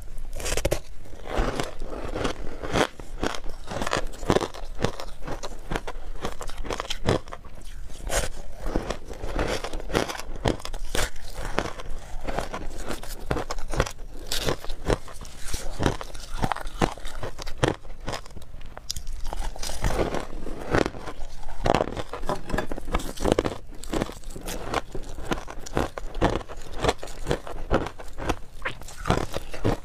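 Close-miked crunching and chewing of compressed shaved ice dipped in passion fruit juice, with dense crackling bites throughout.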